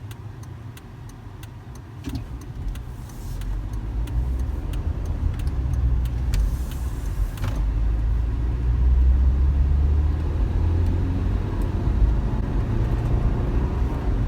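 2015.5 Volvo XC60's 2.0-litre four-cylinder Drive-E engine pulling under acceleration, its low rumble growing louder over the first few seconds, with a rapid series of light ticks that die away about halfway through. The owner takes the ticking for engine knock under acceleration.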